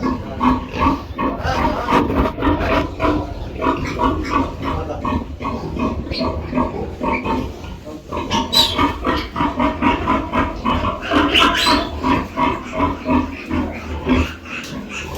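Many pigs grunting continuously in a pigsty, short calls overlapping one another. Sharper, higher-pitched calls break through twice, about halfway through and again a few seconds later.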